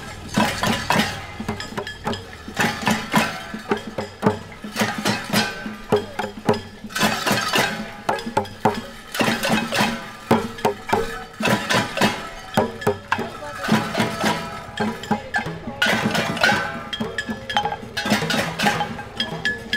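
Marchers beating pots, pans and a drum with drumsticks: a loose, uneven clatter of strikes with metallic ringing.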